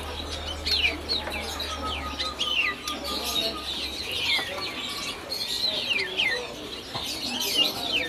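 Many small caged songbirds chirping at once: a dense, overlapping chatter of short, quick, falling chirps. A low steady hum underneath stops about four seconds in.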